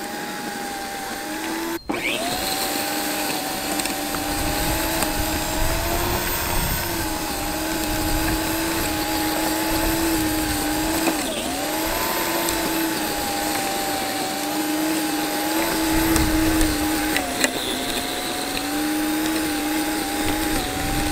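Small electric tiller's motor whining steadily as its tines churn through grass, weeds and wood-chip mulch in a raised bed. It cuts out for an instant about two seconds in and spins back up, and its pitch sags briefly about eleven seconds in as it bogs under load, with low thuds from the tines hitting the soil.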